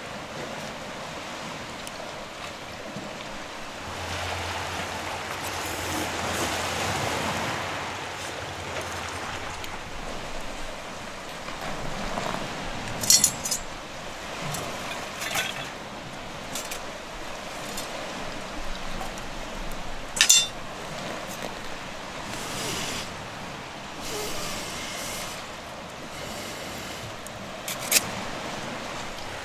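Sharp metallic clinks of camp cookware handled now and then, three of them loudest, about 13, 20 and 28 seconds in, over the steady wash of ocean surf.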